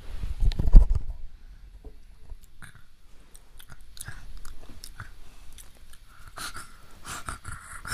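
Handling noise close to the microphone: a loud burst of low thumps and rumble about a second in, then scattered clicks and rustles as plastic toy figures are moved about on carpet.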